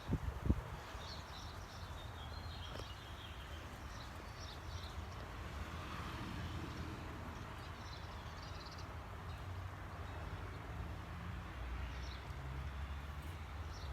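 Wind rumbling steadily on the microphone, with birds chirping in short bursts now and then and a few knocks right at the start.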